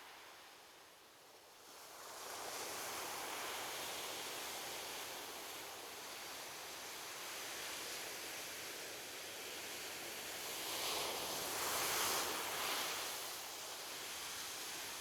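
Ocean surf washing onto a beach, a steady hiss that swells about two seconds in. A larger wave breaks and is loudest late on, before easing back.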